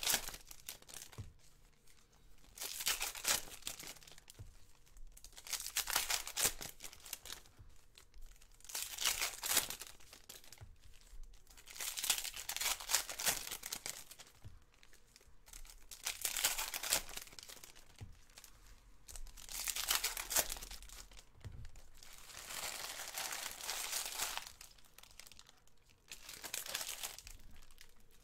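Foil wrappers of Panini Prizm basketball retail card packs being torn open and crumpled one after another, a burst of crinkling about every three seconds.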